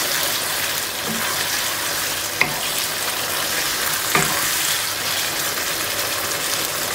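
Potato pieces frying in a spiced onion-tomato masala in a non-stick pan, sizzling steadily as a spoon stirs them, with two brief knocks a couple of seconds apart.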